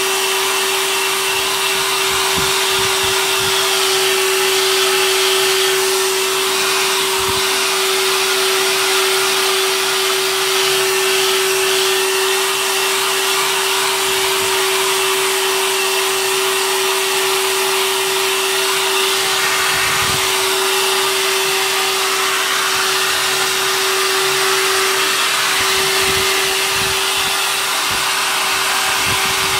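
A very old hair dryer running continuously, a steady blowing rush with a constant motor whine, and a few faint low knocks.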